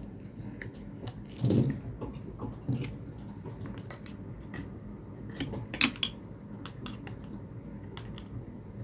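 Tools and metal parts of a submersible pump clicking and clinking while it is taken apart, with a heavier knock about a second and a half in and a sharp clack near six seconds.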